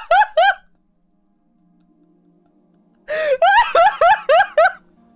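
A person laughing in two bouts of high-pitched, gasping bursts, each bout a quick run of rising yelps. Faint background music plays in the gap between the bouts.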